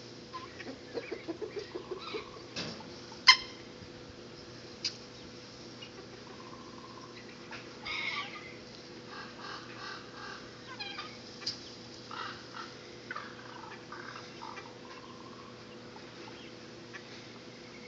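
Assorted short calls from a mixed backyard flock of turkeys, guinea fowl and chickens: a quick run of calls in the first couple of seconds, one sharp loud call just over three seconds in, then scattered repeated chirps.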